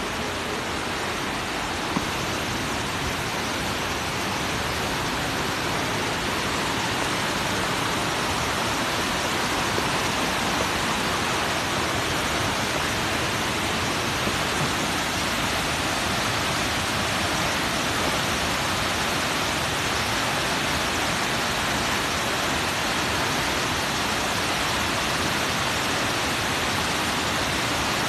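Tall waterfall, a steady even rush of falling water. It grows a little louder over the first several seconds, then holds.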